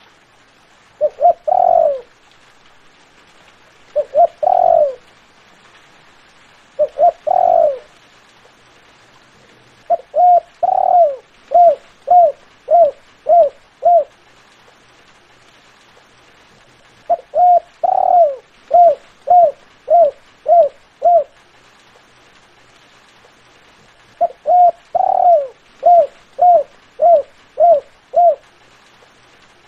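Spotted dove cooing: three short coo phrases, then three longer phrases, each a drawn-out coo followed by a quick run of short coos at about two a second.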